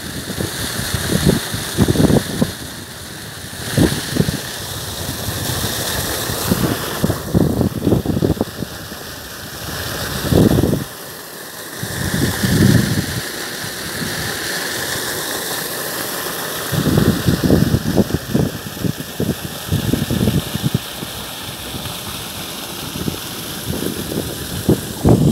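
Wind buffeting the phone's microphone in gusts, with irregular low rumbles over a steady hiss and a brief lull about halfway through.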